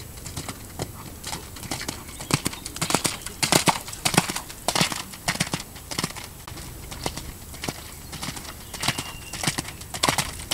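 Hoofbeats of a ridden horse moving around a wet sand arena, a quick run of dull strikes in groups that grow louder as the horse passes close by, then fade and return near the end.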